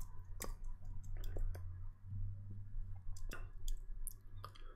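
Computer keyboard keys being typed on in a scattered, irregular run of clicks, over a low steady hum.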